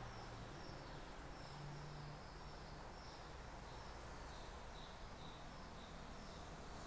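Quiet room noise with faint, short high chirps repeating about twice a second.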